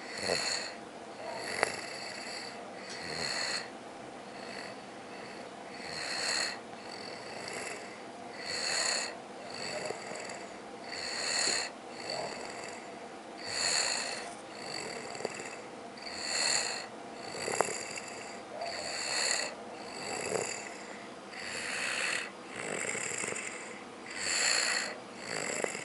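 Snoring in deep sleep: a steady, rhythmic snore that swells on each breath, roughly one every two and a half seconds, with softer breaths in between. There are two brief clicks, one near the start and one about two-thirds of the way through.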